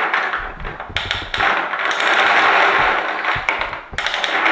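Small plastic balls clattering continuously inside a hand-cranked hexagonal lottery drum as it is turned, with a ball dropping out into the tray near the end.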